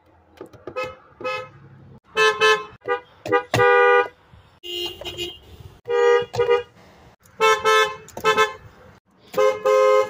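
Car horns sounded in short toots, about a dozen in quick groups of one to three, from several different cars, the pitch changing from car to car. One toot about three and a half seconds in is held for about half a second and is among the loudest.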